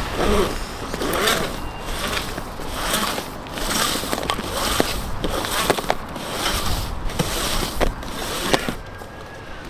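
A cable being pushed by hand into a black corrugated plastic duct, scraping and clicking against the duct's ribs in repeated strokes about every half-second to second.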